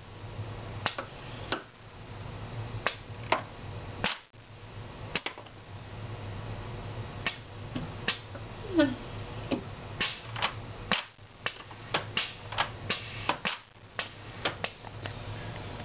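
Pneumatic gripper and slide actuators on an automated vial-handling machine clicking sharply and irregularly as they shift and clamp, over a steady low machine hum. A brief falling squeak about halfway through is the loudest sound.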